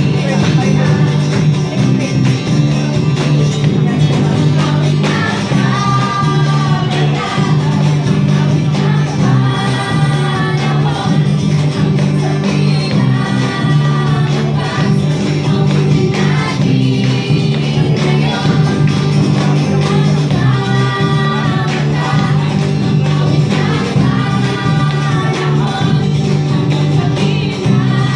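A song with group singing in a gospel or choir style over a steady bass line, the sung phrases coming in every few seconds.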